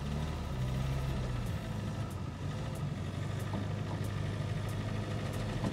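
Classic Lada's four-cylinder engine running steadily at low revs as the car moves slowly through deep snow on wheels fitted with tractor-style tracks, with faint light ticks recurring throughout.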